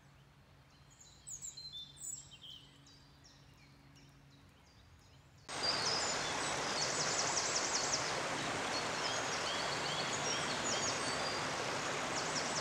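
Birds chirping in quiet woodland, then, from about five and a half seconds in, the steady rush of a small shallow brook running over stones, loudest of all, with birds still singing over it.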